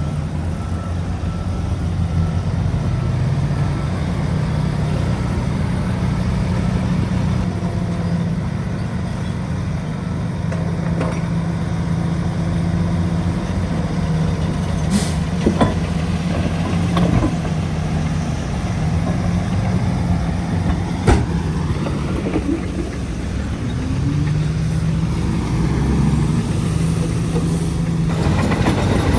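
Diesel engine of a Shantui DH17C3 bulldozer running steadily under work, its pitch shifting now and then, with a few sharp knocks in the middle and later on.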